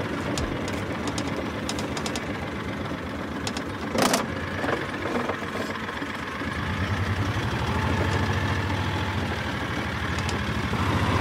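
Engine of a small off-road vehicle running as it drives over a dirt track, with one sharp knock about four seconds in. The engine gets louder from about halfway through.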